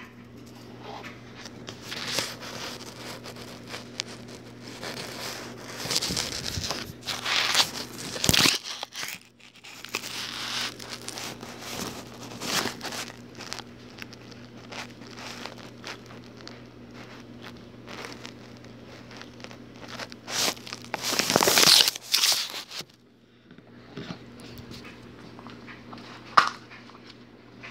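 Irregular rustling and crinkling, loudest in two spells about six to eight seconds in and about twenty-one to twenty-two seconds in, over a steady low hum.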